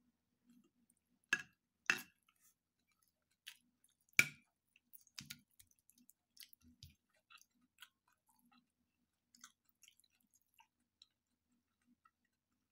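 A metal fork clinks three times against a ceramic plate in the first few seconds, the third clink the loudest. Quiet chewing and small mouth sounds follow as food is eaten.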